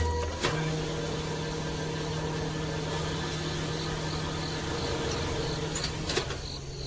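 A small electric motor running with a steady hum and whirr.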